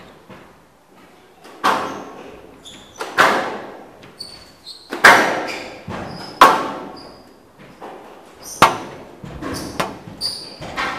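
Squash rally: a string of sharp, echoing cracks from the ball being hit by rackets and striking the court walls, roughly every one to two seconds. Short high squeaks of court shoes on the floor come in between.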